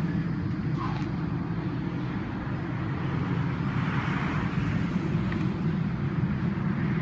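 Wind buffeting the phone microphone, giving a steady, gusty low rumble with a faint rise of hiss about four seconds in.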